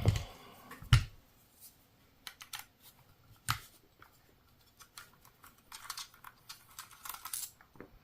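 Knocks and light clicks of an air rifle's metal parts being handled while it is taken apart by hand, with a sharp knock about a second in and another about three and a half seconds in, and runs of quick small clicks in between.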